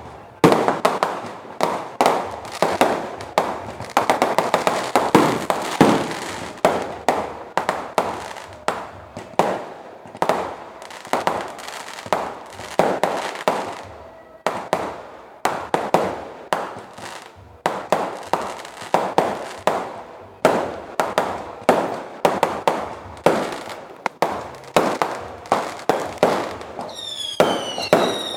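Fireworks display: a rapid, irregular run of sharp bangs, several a second, throughout. Near the end several whistling fireworks sound together, each whistle falling in pitch.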